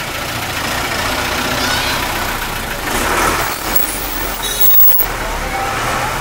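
A bus engine running as the bus passes close by, with steady road noise and a swell in loudness about halfway through. A brief high squeal comes near the end.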